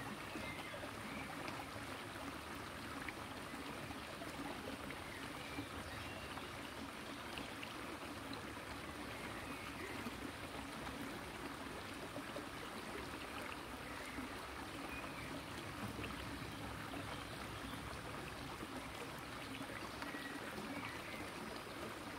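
Flowing river water heard through an underwater camera: a steady, even rushing of current over a stony riverbed.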